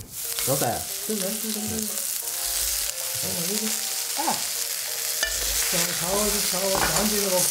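Chicken wings sizzling in hot oil in a wok while a metal wok spatula stirs and flips them from the bottom, scraping against the pan.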